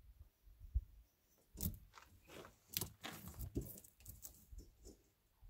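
Faint clicks and short scrapes of a metal square and marker handled against a flat steel strap while it is measured and marked for bending, most of them in a cluster through the middle.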